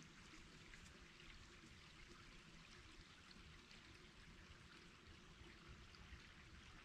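Flowing water of a stream, a faint steady rushing.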